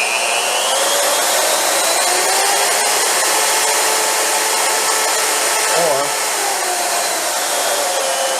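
DeWalt DWM120K portable band saw running free with no cut, its motor and blade whine rising and falling in pitch as the variable-speed trigger is squeezed and eased.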